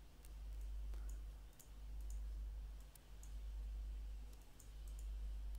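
A computer mouse clicks faintly several times over a low hum that swells and dips about every second and a half.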